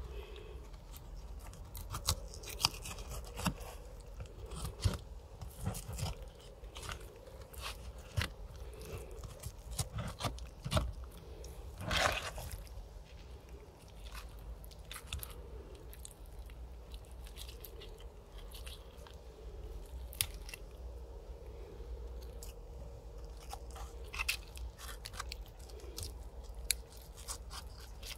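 Mora 711 knife cutting and scraping through flesh, cartilage and bone of a pig head on a wooden board, giving irregular crunching and crackling clicks, the loudest about halfway through.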